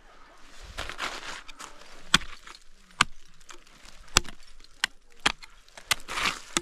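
Ice tools striking and scraping on ice-glazed rock: about six sharp blows roughly a second apart, with two longer scrapes, one near the start and one near the end.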